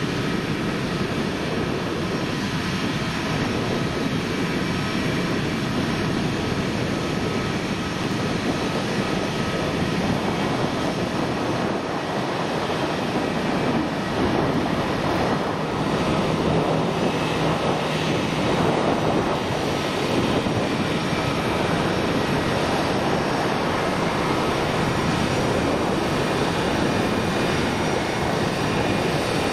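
Allegiant Air Airbus A319's twin jet engines at taxi power as the airliner rolls past. A steady rush with a thin whine, growing a little louder about halfway through.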